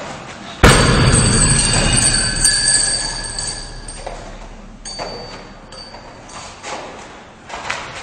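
A jumping kick striking a hanging heavy punching bag about half a second in: one loud thud with a ringing tail that dies away over about four seconds. Lighter knocks come near the middle and near the end.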